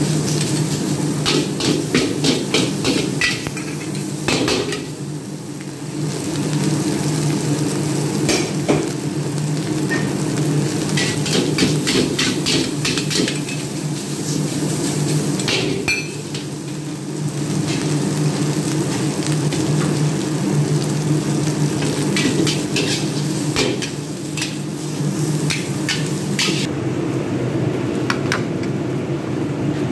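Fried rice being stir-fried in a carbon-steel wok over a high gas flame: a metal ladle and spatula scrape and clang against the wok in quick runs of strikes, over sizzling and a steady low hum.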